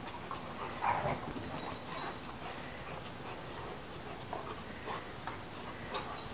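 Two young dogs play-wrestling: scuffling and a few short dog noises, the loudest about a second in.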